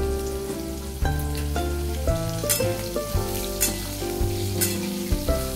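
Instrumental background music, its notes changing about every half second, over potato cubes sizzling as they fry in hot oil in a kadai. A metal spatula scrapes the pan a few times, about a second apart, partway through.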